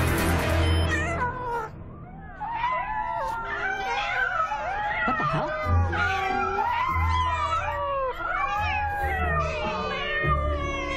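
Music for about two seconds, then a chorus of many cats meowing over one another, the sound of dozens of cat videos playing at once on computer screens, over a low music bed.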